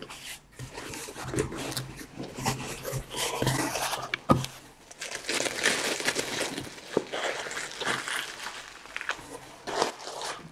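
Bubble wrap and cardboard box flaps rustling and crinkling as a shipping box is opened by hand and the bubble wrap is lifted out, with scattered small clicks and one sharp knock about four seconds in.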